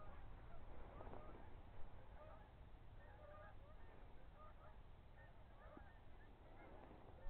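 A distant flock of geese honking: many faint, short calls overlapping throughout. This is the restless calling of birds getting ready to fly out.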